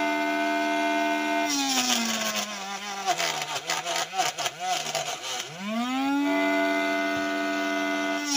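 Small DC motor of a homemade chilli cutter whining steadily. About a second and a half in, a green chilli is pushed into the spinning blade: the whine drops in pitch under the load, with irregular chopping for several seconds. The motor then speeds back up to its steady whine, and is loaded again by the next chilli right at the end.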